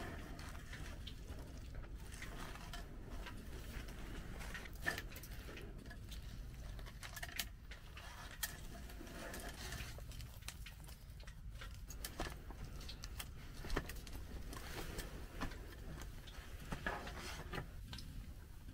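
Quiet food-handling sounds: crushed cornflakes pressed and sprinkled by hand onto a cream-coated stack on a wooden board. Scattered small clicks and crumbly taps sit over a steady low rumble.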